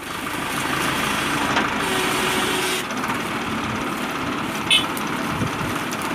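Mahindra Arjun Ultra-1 555 DI tractor's diesel engine running steadily, fading in over the first second. A brief high-pitched sound stands out about three-quarters of the way through.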